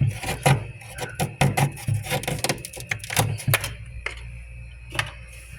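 Frost buildup being scraped off a humidifier: a quick, irregular run of scraping and scratching strokes that thins out after about three and a half seconds, with a couple of single strokes near the end, over a steady low hum.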